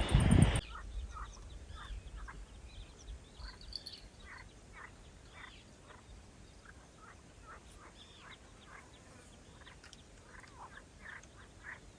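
Many short, faint animal calls, scattered and overlapping, after a loud rushing noise that cuts off about half a second in.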